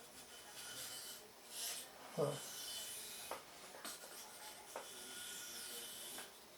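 Steel knife blade, a VG10 Spyderco Delica 4, drawn across a whetstone in several long scraping strokes, with a few light clicks. A brief low sound about two seconds in is the loudest thing.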